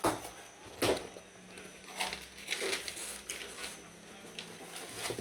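Handling noise: a series of irregular knocks and clicks, the sharpest right at the start and about a second in.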